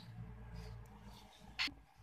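Gas stove burner running with a low steady rumble under a stainless steel pot of water, with one sharp click about one and a half seconds in.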